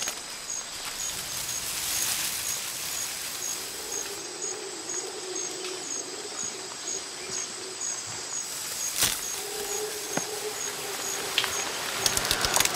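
Rainforest ambience: an insect chirping steadily about twice a second over a hiss. A low wavering hum comes in the middle, and a sharp click sounds about nine seconds in.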